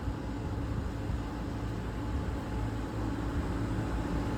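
Carrier rooftop HVAC unit starting and running after power is restored, giving a steady mechanical hum with a faint steady tone that grows slightly louder. The unit's breaker holds without tripping.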